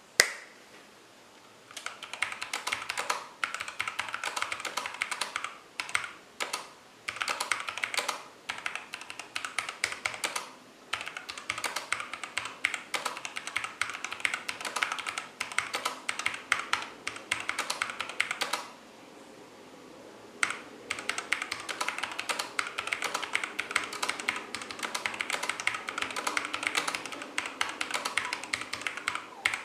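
Typing on a mechanical keyboard with Halo True tactile switches: fast runs of keystroke clacks with short breaks, and a pause of about two seconds some two-thirds of the way through.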